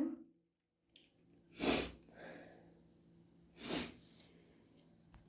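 A hayfever sufferer's irritated, runny nose: the tail of a sneeze right at the start, then two short, sharp sniffs about two seconds apart, with a faint breath between them.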